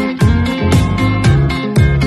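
Background music with a steady beat, about two strong beats a second.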